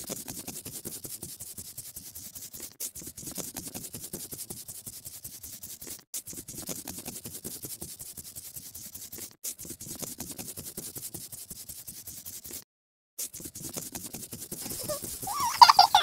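Rapid scratchy scribbling of coloring in, like a crayon or marker rubbed back and forth, in stretches of a few seconds separated by short breaks, one of them a full silence about three-quarters of the way through. In the last second a louder high call with a wavering pitch breaks in.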